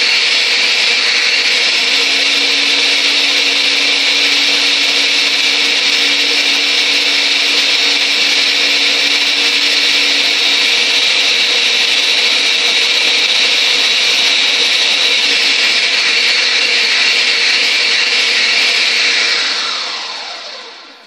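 Countertop blender running steadily, blending soaked almonds and water into almond milk; about 19 seconds in it is switched off and the motor winds down, falling in pitch.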